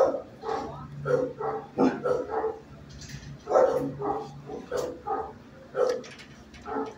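Shelter dogs barking in the kennels, about a dozen short barks in quick runs, sometimes two a second, over a steady low hum.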